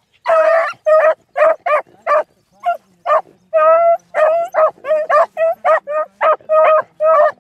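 Beagles baying on a rabbit's scent: a rapid string of high yelping calls, about three a second, with a few longer drawn-out bawls mixed in.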